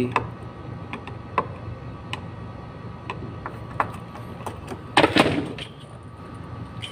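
Small clicks and scrapes of a screwdriver working the terminal screws of a control relay, with a louder rustle and knock about five seconds in, over a steady low hum.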